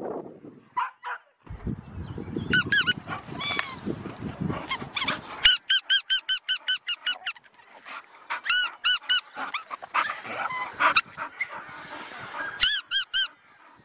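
Squeaky toy ball squeezed in quick runs of high squeaks, about five a second, four runs of roughly four to ten squeaks each. A low rustle sits under the first few seconds.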